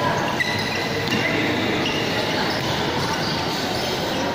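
Spectators in an indoor hall, many voices shouting and chattering at once in a steady din, echoing off the walls.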